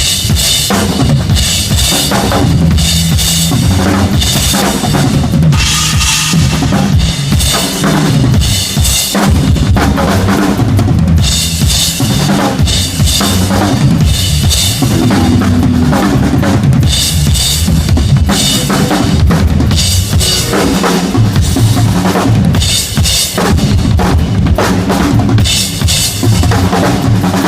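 Rock drum kit played non-stop in a loud, driving groove, with bass drum and snare hits throughout.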